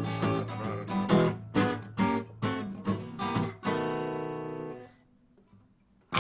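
Acoustic guitar strummed, a chord stroke every half second or so; a last chord struck about four seconds in rings on and dies away about a second later, leaving near silence.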